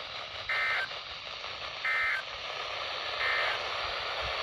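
Weather radio receiver playing three short SAME data bursts of the Emergency Alert System, each a brief buzzy two-tone chirp about a second and a half apart, over steady radio hiss. The bursts are short enough to be the end-of-message code that closes an alert.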